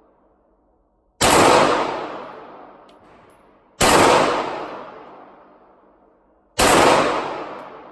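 Three single gunshots on a shooting range, about two and a half seconds apart, each followed by a long echo dying away.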